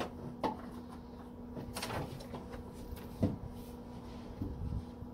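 A handful of scattered clunks and knocks from gloved hands working on the sheet-metal trunk floor of a car, over a steady low hum.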